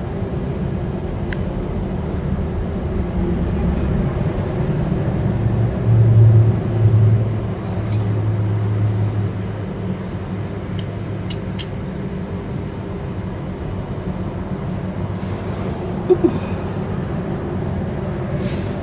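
A steady low mechanical hum that swells into a louder low drone for a few seconds around the middle, with a few light clicks.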